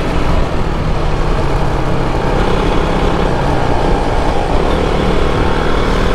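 KTM RC sportbike's single-cylinder engine running steadily while riding at cruising speed, heard from the rider's seat over a steady rush of wind and road noise.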